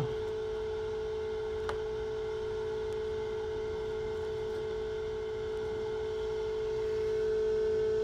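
Steady electrical hum from a running egg incubator, one even tone with fainter overtones, growing a little louder about seven seconds in. A light click about two seconds in.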